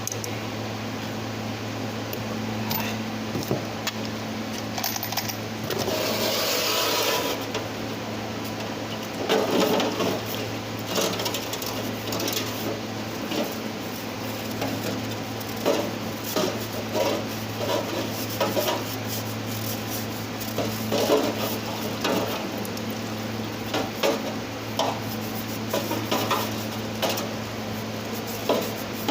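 Hand scraping, rubbing and light metal clinks of EGR parts being cleaned, over a steady low hum. A short hiss comes about six seconds in.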